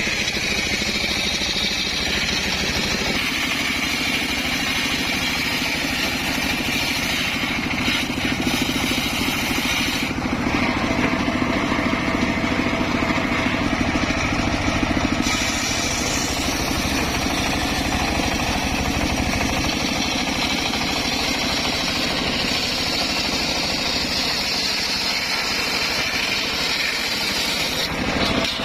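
Homemade circular sawmill running steadily, its engine drone held level while the high part of the sound shifts about 10 seconds in and again around 15 seconds.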